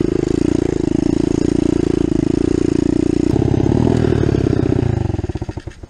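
Kawasaki KLX110 pit bike with a 143 cc big-bore kit: its single-cylinder four-stroke engine is running with a snapped exhaust pipe. The engine note drops about three seconds in, then winds down and stops near the end.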